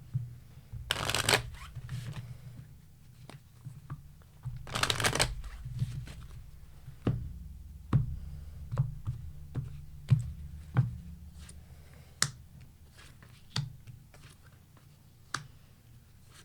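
Tarot cards being shuffled: two brisk shuffling rustles, one about a second in and another about five seconds in, then a scatter of short card snaps and taps.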